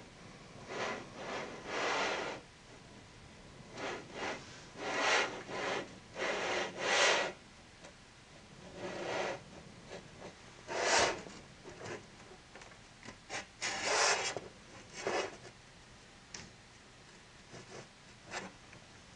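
Irregular short rubbing or scraping noises, about a dozen in all, each lasting well under a second, with quiet gaps between them.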